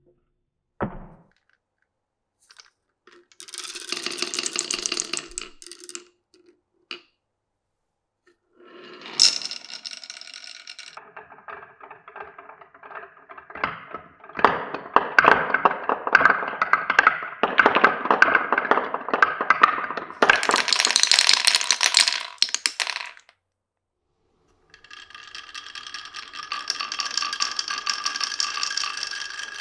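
Glass marbles rolling down a wooden marble run, with clicks and clacks as they drop onto and knock against the track pieces. There are several separate runs with short gaps between: a single click, a rolling stretch, a sharp knock followed by a long, busy clatter, then a steady ringing roll near the end.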